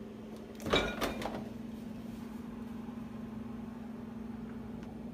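A refrigerator door is pulled open about a second in, with a short clatter as it unseals and swings, over a steady low hum.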